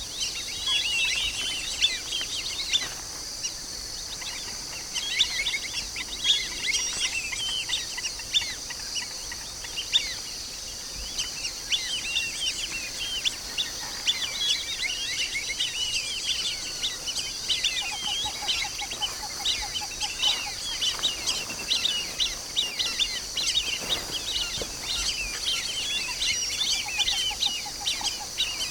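A flock of black-bellied whistling ducks calling continuously with many overlapping short, high chirping whistles, over a steady high-pitched drone. Two short rapid trills sound lower down in the second half.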